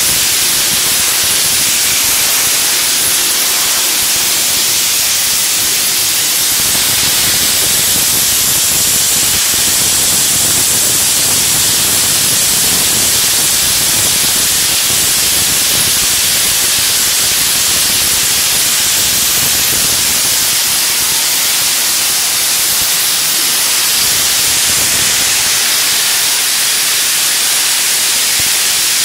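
Vapor-blasting nozzle spraying a wet mix of compressed air, water and abrasive onto a round metal tabletop: a loud, steady hiss that does not change.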